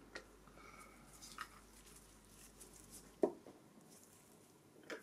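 Light handling sounds of gloved hands moving resin figures in a plastic tray: a soft tap at the start, a sharp knock a little over three seconds in, and another tap near the end.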